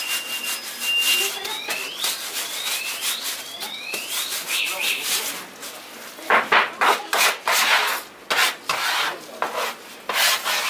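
Gloved hands rubbing and rolling dough ropes across a flour-dusted wooden board: a dry, rasping scrape in repeated back-and-forth strokes. It is heaviest in the second half, and short rising squeaks come in the first half.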